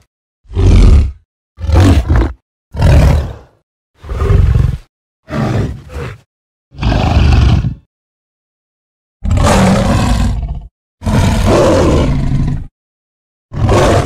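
Custom giant-ape (King Kong) roar sound effects played one after another with brief silences between: a run of short grunts and barks, then, after a pause about halfway in, several longer, drawn-out roars.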